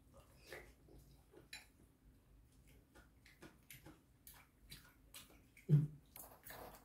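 Soft chewing with scattered small mouth clicks while eating curry rice, and a brief low vocal sound near the end.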